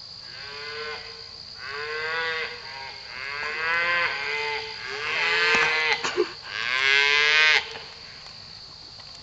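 Cattle mooing: about five drawn-out calls one after another, each louder than the one before, the loudest near the end, over a steady high-pitched hum.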